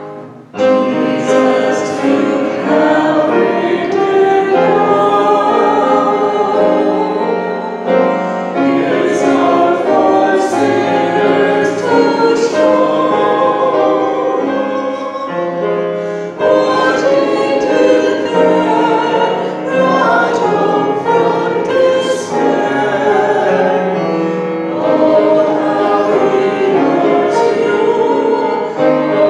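A hymn sung by a congregation, led by a woman singing into a microphone. The singing starts about half a second in and has a brief break about halfway through.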